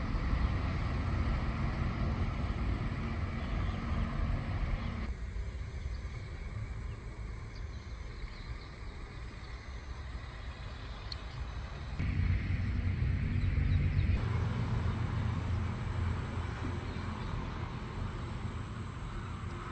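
Outdoor field ambience dominated by a heavy low rumble, changing abruptly about five, twelve and fourteen seconds in.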